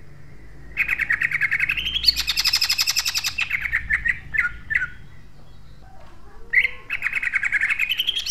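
Caged green leafbird (cucak ijo) singing in rapid-fire bursts: a long, fast run of tightly spaced rough notes that climbs in pitch, a few single notes and a short pause, then a second fast run starting near the end.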